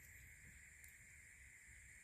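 Near silence: faint steady outdoor background with a constant high-pitched hum and no distinct sounds.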